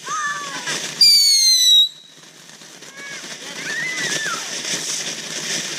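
Nutty Monkey ground firework going off: a shrill whistle lasting under a second, falling slightly in pitch, about a second in. It is followed by a crackling hiss of spraying sparks that grows louder.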